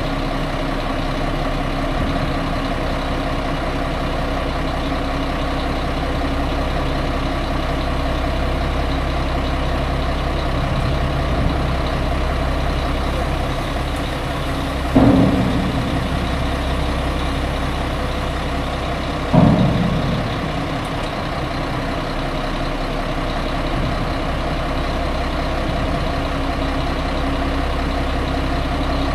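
A 2000 Mack RB dump truck's diesel engine running steadily with the dump bed raised on its hydraulic hoist. Two sudden loud knocks break in about halfway through, some four seconds apart.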